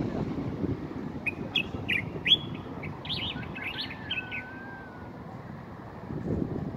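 Common bulbul (Moroccan bulbul) singing: a quick run of short chirped, whistled notes, followed by a longer, lower drawn-out whistle.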